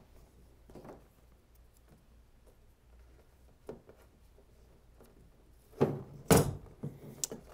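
Faint handling, then a few sharp knocks and scrapes close together near the end as paracord is fed through the bolt holes of a kayak landing-gear bracket and hands bump the bracket and hull.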